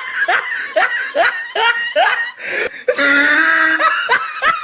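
A person snickering: a run of short laugh syllables that each rise in pitch, about two to three a second, with a longer held laugh about three seconds in.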